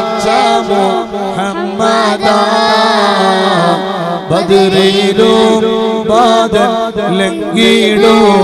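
A boy singing an Islamic salawat devotional song into a microphone, in long wavering held notes, over a steady low drone.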